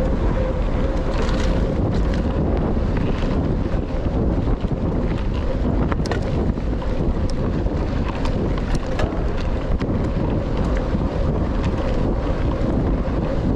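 Wind buffeting the action camera's microphone and tyres rumbling over a forest trail as a Rockrider XC 900 mountain bike descends at speed, with frequent sharp clicks and rattles from the bike over bumps.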